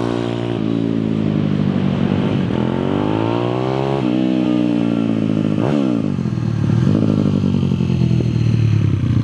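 Small motorcycle engine running as the bike rides along, its revs climbing and dropping several times, with a long rise from about two and a half to four seconds in and a quick swoop near six seconds.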